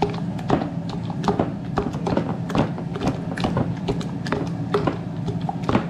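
Roasted tomatoes and serrano chiles being mashed in a glass bowl: irregular knocks and clicks of the masher against the bowl, a few a second, over a steady low hum.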